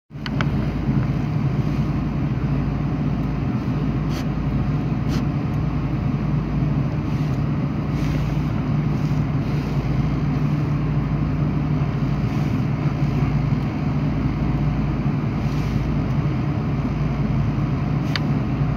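Cabin noise aboard a Boeing 777-200 on the ground: a steady low hum and rumble from the engines and air-conditioning, with a few faint clicks.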